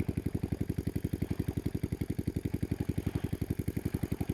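A small engine running steadily, with an even, fast thudding beat of about ten pulses a second.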